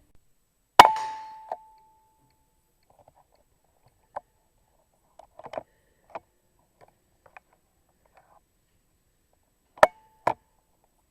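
Air rifle fired twice, each a sharp crack with a short ringing tone. The first shot, about a second in, is followed by a smaller knock and scattered faint clicks. The second comes near the end and is followed by another knock half a second later.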